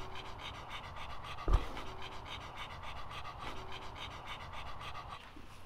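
A dog panting fast and evenly, with one low thump about a second and a half in.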